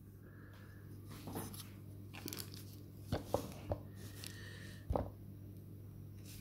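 Faint handling noise: a few light clicks and rustles as a small circuit board is turned over in the fingers, the sharpest tick about five seconds in, over a steady low hum.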